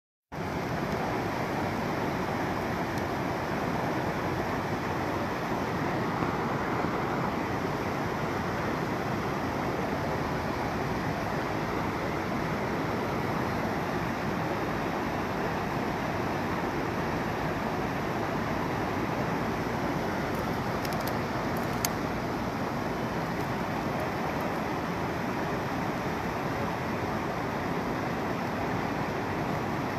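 Steady rushing of a swollen, muddy river in flood, with a couple of faint clicks about two-thirds of the way through.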